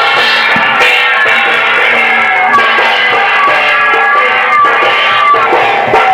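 Music with drums and a melody instrument, a steady rhythm throughout.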